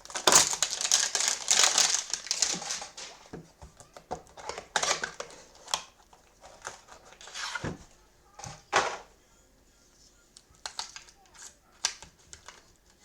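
Cardboard and plastic wrapping being torn open and crinkled as a trading card hanger box is opened, loudest in the first few seconds, followed by scattered rustles and light clicks of cards being handled.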